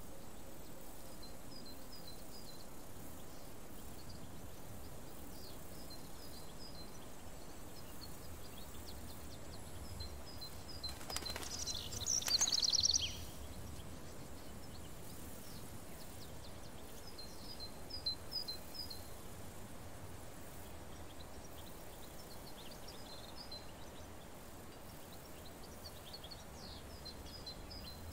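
Small birds chirping in short bursts of quick high notes every few seconds over a faint steady hiss; the loudest burst, a fast trill, comes about twelve seconds in.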